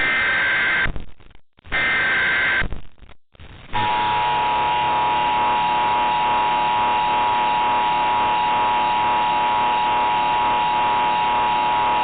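Mock Emergency Alert System broadcast: two more one-second bursts of warbling SAME header data tones, then, after a short gap, the steady two-tone EAS attention signal. The attention signal sounds for about eight seconds and then cuts off.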